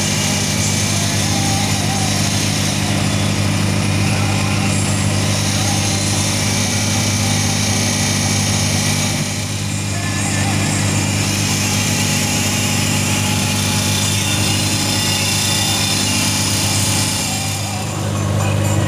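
Fishing boat's inboard engine running steadily at cruising speed, a constant low drone with a hiss of wind and water over it.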